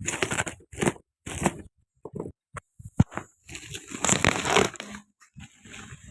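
Packaging being handled and torn open: irregular bursts of crinkling and tearing, with a sharp click about three seconds in and a longer stretch of rustling after it.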